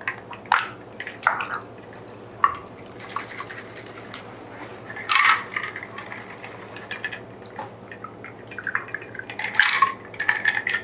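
A cocktail pouring from a steel cocktail shaker through its strainer top into rocks glasses, coming in irregular trickles and drips with short pauses between them.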